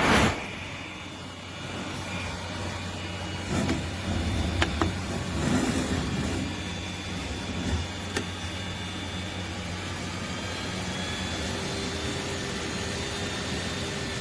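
High-velocity dog blow dryer running steadily, a constant rush of air over a motor hum. A few knocks and louder bursts of handling noise come in the first half.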